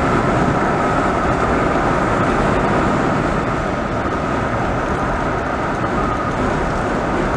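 Steady road noise of a car travelling at highway speed, tyre and engine noise heard from inside the vehicle, with a faint steady whine above it.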